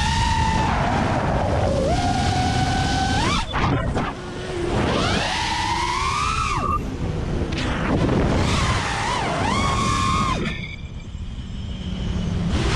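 A 6S FPV racing quadcopter's brushless motors and propellers whining as the throttle is worked, the pitch repeatedly climbing and falling over a steady rush of wind on the onboard camera. The whine falls away briefly about four seconds in and again near the end during throttle cuts, then comes back.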